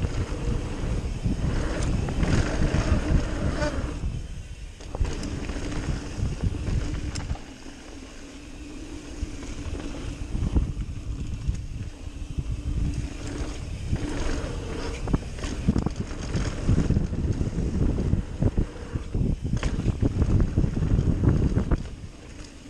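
Mountain bike descending a dirt jump trail at speed: wind buffeting the microphone over tyres rolling on packed dirt, with the bike's chain and frame rattling over bumps.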